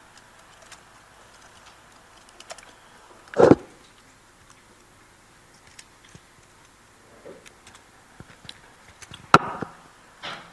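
Sparse clicking of laptop keys and trackpad, with one loud dull thump about a third of the way in and a sharp knock near the end. No music plays.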